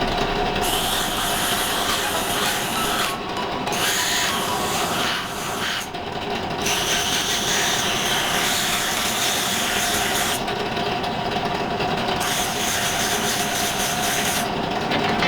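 Electric power tool running steadily, its motor holding one steady whine, with a hissing, rasping layer on top that drops away for moments four times.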